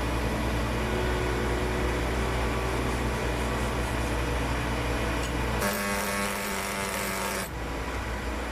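MTS vacuum excavator running, with a steady engine drone and a rush of air. From about six to seven and a half seconds in, the air rush turns brighter and hissier, with a hum on top.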